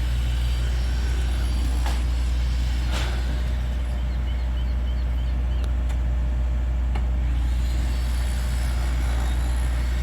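Steady low diesel rumble of demolition machinery at work, with a few sharp knocks about two, three, six and seven seconds in.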